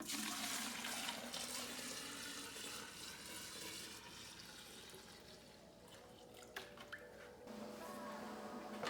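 Coolant pouring and splashing, starting suddenly, then tapering off over about five seconds. Background music comes in near the end.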